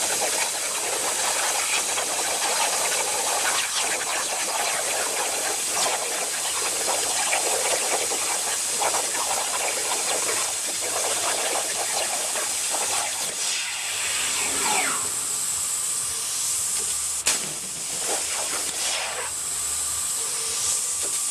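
CNC plasma cutter's arc hissing steadily as it cuts, with a sharp click and a momentary dip late on.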